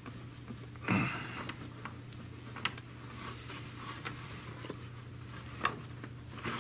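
Hands working a carburetor and its hoses loose inside an ATV's frame: a scrape about a second in, then scattered small clicks and knocks of parts and hoses being handled, over a steady low hum.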